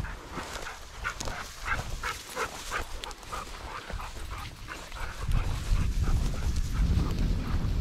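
Hunting dog yipping and whining in a quick run of short calls, a few a second, over a low rumble on the microphone that grows heavier about five seconds in.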